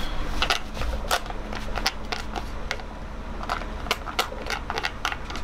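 Chopsticks clicking and scraping against a plastic tray of cooked packaged rice as the rice is pushed out into a pot; a quick, irregular run of sharp clicks and taps.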